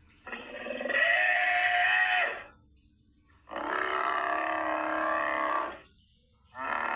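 Creature sound effect for a humanoid moray eel: drawn-out, pitched, roar-like vocal calls, two of about two seconds each with short silent gaps between, and a third starting at the very end.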